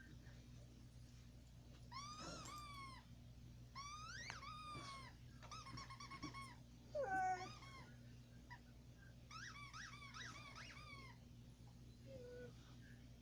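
A rubber squeaky toy being squeezed in several runs of high squeaks, each squeak bending up and down in pitch. About seven seconds in, a pet gives a short, louder cry that falls in pitch, like a whine.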